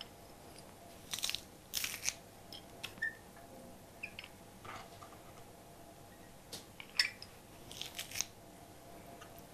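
Handheld metal garlic press crushing peeled garlic cloves: a few short crunches and clicks, spread out with quiet between.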